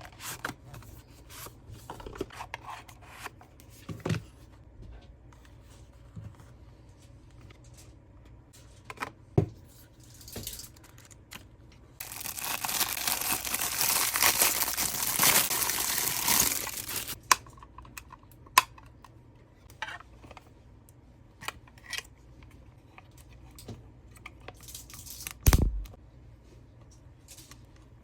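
Packaging being handled while a small printer is unboxed: scattered taps and clicks, then several seconds of continuous tearing and crinkling of wrapping about twelve seconds in. A single heavy thud comes near the end.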